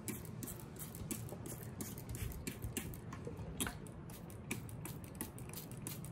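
Spray bottle squirting water over freshly planted succulents and their soil: a quick run of short spritzes, about three a second.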